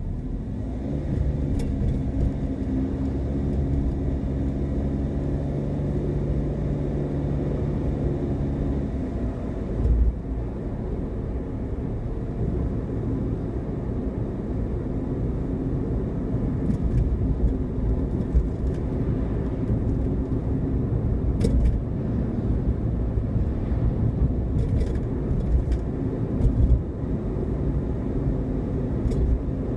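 Car driving along a road: a steady low rumble of engine and road noise. A steady engine hum fades after about nine seconds, followed by a single low thump, and a few light knocks come later.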